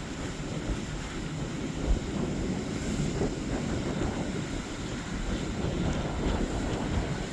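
Strong wind buffeting the microphone: a steady low rumble with irregular thumps from gusts, the loudest about two seconds in.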